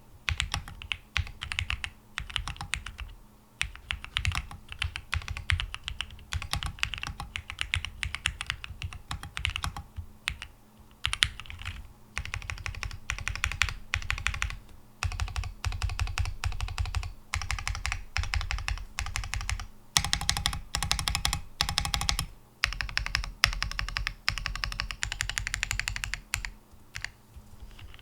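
Fast, continuous typing on a Percent Studio Luna75 mechanical keyboard with TTC Wild 42g switches, a PC plate, gasket mount, foam and EPBT PBT keycaps. There are short pauses between bursts, and a run of heavier strokes comes about two-thirds of the way through.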